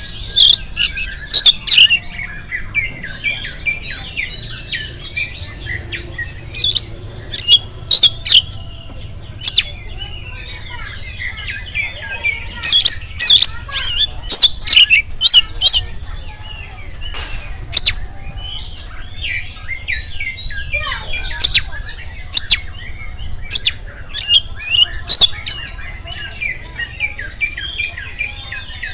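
Oriental magpie-robin (kacer) singing continuously in lively full song: a dense, varied chattering warble, broken every few seconds by clusters of loud, sharp, very high notes.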